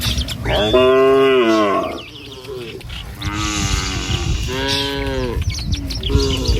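Cattle in a herd mooing: several long moos, the loudest starting about a second in and another around five seconds in, with a shorter one near the end. Faint bird chirps sound in the background.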